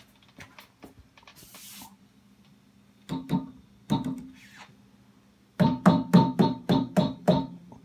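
Vox AC-15 valve combo amp ringing through its own speaker as its cabinet is tapped by hand: two pairs of taps, then a fast run of about four taps a second over the last couple of seconds, each tap sounding a pitched tone that dies away over a low steady hum. The ringing comes from a microphonic output tube picking up the knocks.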